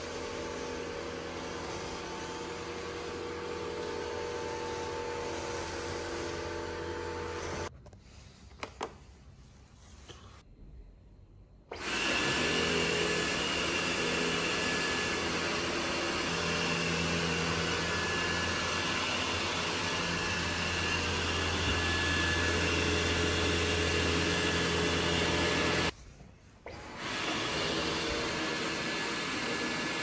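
Dyson 360 Vis Nav robot vacuum running steadily, first in quick mode, then after a short break much louder in boost mode with a steady high whine over the suction, and in auto mode near the end.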